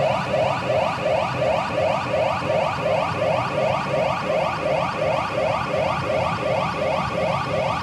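Pachinko machine's electronic sound effect: a short rising chirp repeated evenly about three times a second, like an alarm.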